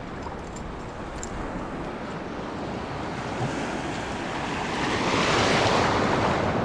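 Sea wave surging in and washing over shallow rocks, building from about three seconds in to a loud wash around five to six seconds in, then easing slightly.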